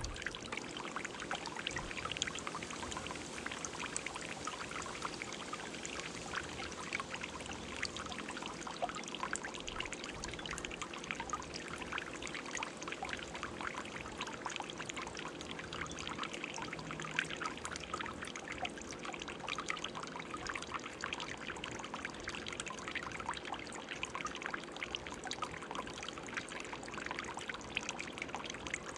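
Garden fountain running: water spilling over the stone bowl and trickling and splashing steadily into the basin below.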